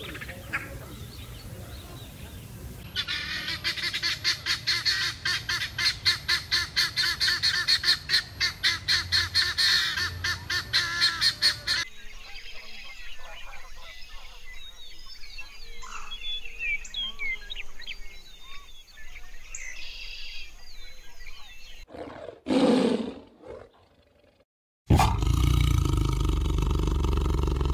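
A run of loud repeated animal calls, about two a second, is followed by several seconds of small birds chirping and twittering. Near the end a tiger roars, once briefly and then long and loud.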